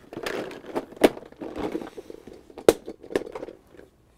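Clear plastic multi-compartment storage case full of die-cast toy cars being handled and turned: a rustling clatter of plastic with sharp clicks, the strongest about a second in and again near the three-quarter mark.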